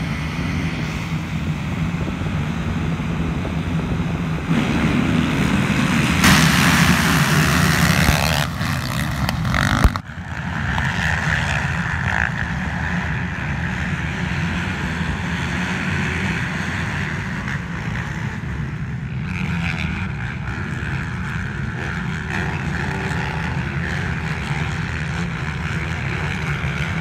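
A full field of motocross bikes revving together at the start line, swelling to its loudest about six to eight seconds in as the pack gets away. After a sudden break about ten seconds in comes the steady engine sound of the bikes racing around the track.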